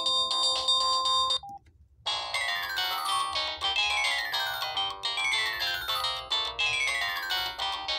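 Samsung SGH-S500 mobile phone playing its built-in ringtone melodies: one tune ends about a second and a half in, a short beep and a brief gap follow, and a new electronic melody starts with a quick falling run of notes that repeats about once a second.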